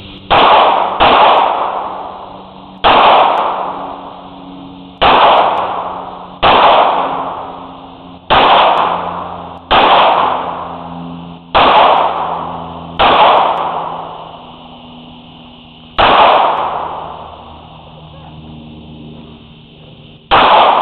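Eleven single pistol shots at uneven intervals, each with a long echoing decay: two close together near the start, then one every one and a half to two seconds, a longer gap before the tenth, and the last near the end.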